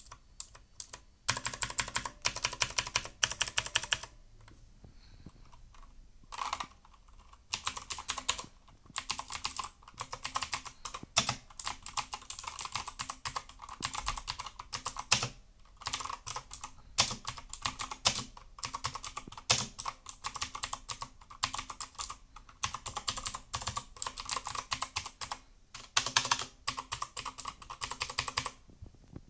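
Typing on a GAMDIAS Hermes P1 mechanical keyboard with clicky TTC Blue switches: fast runs of keystrokes in bursts with short pauses, the longest about four seconds in.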